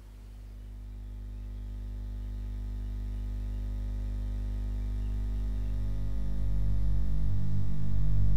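Film score: a low, steady drone that swells louder throughout, with higher tones joining about five seconds in.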